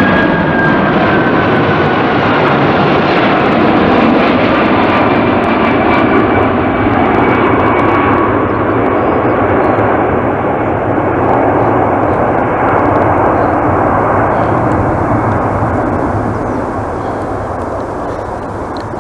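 Boeing 747-400 freighter's four jet engines running loud as it passes low overhead on final approach, with a whine that falls in pitch as it goes by. The high end fades and the rumble slowly eases as it draws away toward the runway.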